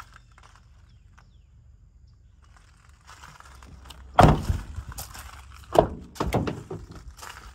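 The rear door of a 2014 International Terra Star crew cab is swung shut, closing with one heavy thunk about four seconds in. Two more sharp latch and door clunks follow near the six-second mark as the next door is handled.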